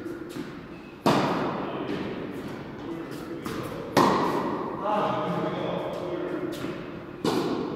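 A tennis racket strikes a ball three times, about three seconds apart. Each sharp hit rings on in a long echo in a large indoor hall.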